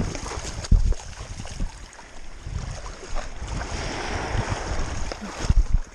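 Shallow sea water washing and sloshing, with small waves breaking in the surf, and wind on the microphone. A few low thumps stand out, the loudest about a second in and near the end.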